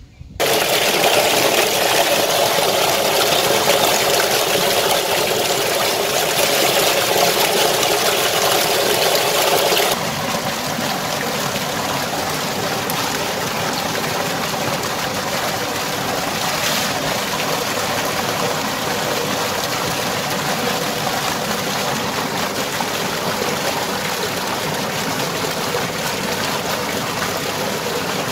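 Water gushing steadily from a tube-well pipe and splashing into a concrete tank. It drops a little in level about ten seconds in.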